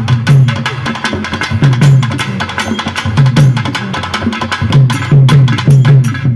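Thavil drums played live at a fast dance tempo: rapid sharp stick strokes over deep booming bass strokes that come in loud clusters, with a faint wind melody underneath.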